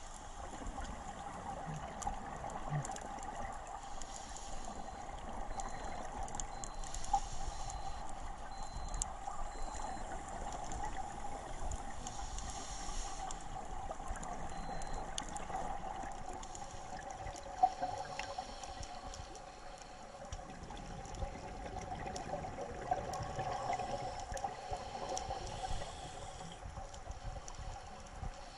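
Underwater sound during a scuba dive: scuba regulator exhaust bubbles gurgle every few seconds over a steady hum.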